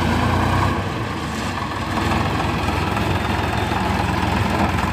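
Sonalika DI-35 tractor's three-cylinder diesel engine running steadily as the tractor pulls forward with its trolley tipped up after dumping a load of sand.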